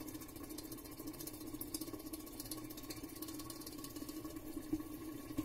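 Steady low hum, with a faint light tap near the end.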